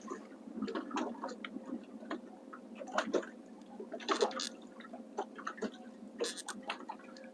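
Small waves lapping and slapping against a boat hull, in short irregular splashes, with scattered light ticks and clicks between them.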